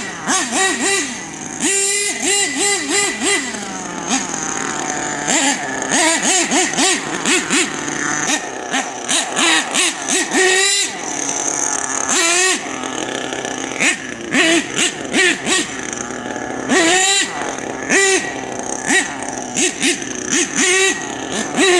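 Small nitro engine of an HPI Savage X 4.6 RC monster truck, revved in quick repeated bursts. Its high, buzzing pitch shoots up and falls back many times as the truck is driven, with a few longer pulls in between.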